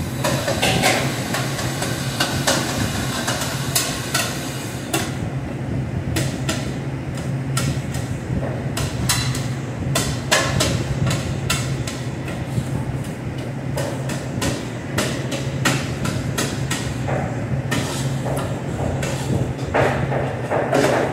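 Repeated metal clanks and knocks of a cooking utensil working against metal cookware, irregular and frequent, over the steady low hum of a commercial kitchen exhaust hood.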